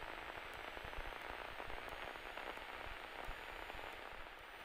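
Faint steady hiss on the aircraft's headset intercom audio line, with a thin, faint high-pitched whine. The engine itself is not distinctly heard.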